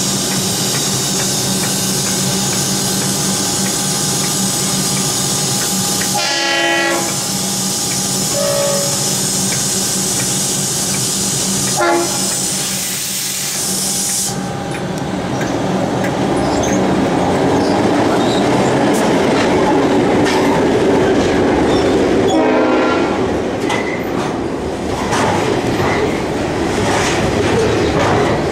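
A stopped Siemens electric train hums steadily with a high hiss, and the hiss cuts off about halfway through. A train horn sounds several times as a freight train hauled by G and S class diesel locomotives approaches. The locomotives then rumble past, and the container wagons clatter over the rail joints.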